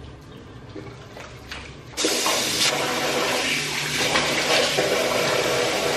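Tap water running hard into a bathroom sink, turned on abruptly about two seconds in and running steadily, as foamy face wash is rinsed off.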